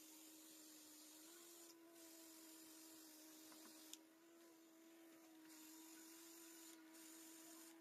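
Faint steady hum of a small airbrush compressor, with a soft hiss of air that drops out briefly a few times.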